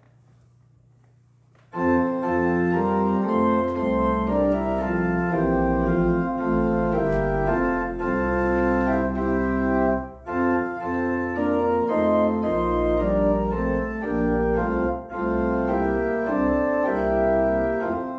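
Organ playing sustained full chords over a low bass line, starting suddenly about two seconds in, with short breaks between phrases twice later on.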